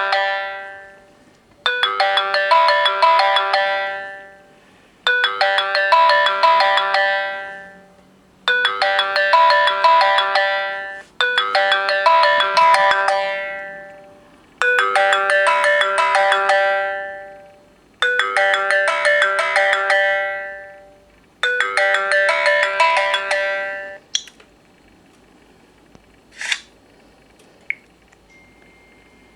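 Samsung Galaxy S GT-I9003 alarm tone: a short chiming melody repeated about every three and a half seconds, seven times over, stopping after about 24 seconds. A few faint clicks follow near the end.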